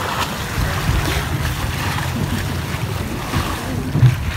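Wind buffeting the microphone over choppy open water from a boat, a steady rushing noise with a heavy low rumble.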